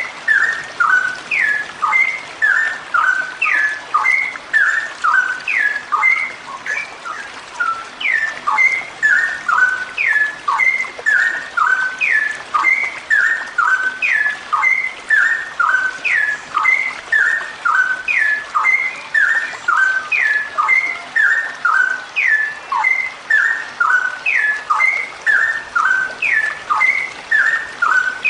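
Straw-headed bulbul (cucak rowo), given by the uploader as a female, singing a long unbroken run of short, quick whistled notes that rise and fall around the same pitches, with no pause.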